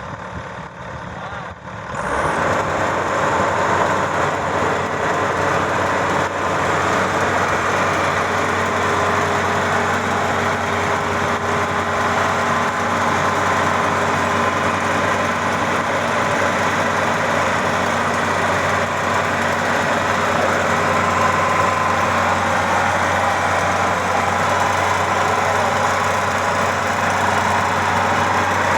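Maxxi Bimo 102 combine harvester's engine running, louder from about two seconds in, then holding steady.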